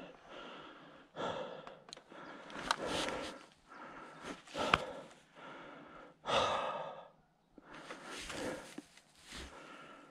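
A mountain biker breathing hard through the ride, a loud breath every second or so.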